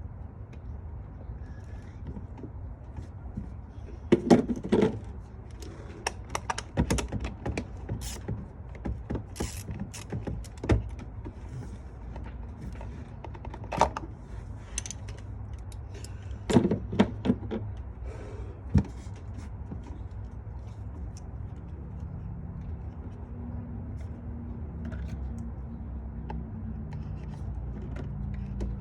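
Hand tools and engine parts clicking and knocking against metal during spark plug work. The knocks are scattered and sharp, come in clusters about four seconds and about sixteen seconds in, and sit over a steady low hum.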